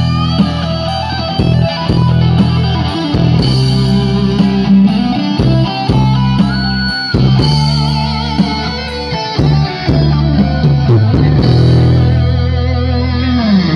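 Music with electric guitar and heavy bass played loud through a large outdoor sound system with stacked horn-loaded bass cabinets, as a sound check.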